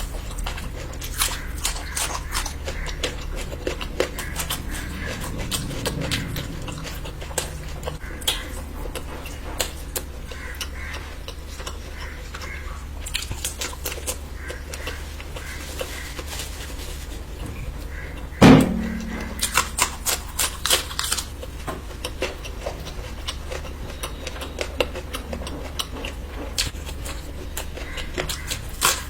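Close-miked eating sounds: wet chewing and mouth clicks scattered throughout, with one loud knock about two-thirds of the way in, followed by a quick run of clicks. A steady low hum lies underneath.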